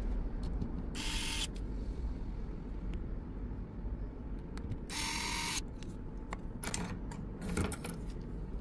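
Electric precision screwdriver whirring in two short bursts, about a second in and about five seconds in, driving the small screws of a phone's bottom cover. Small clicks of tools and screws on the mat, over a low steady hum.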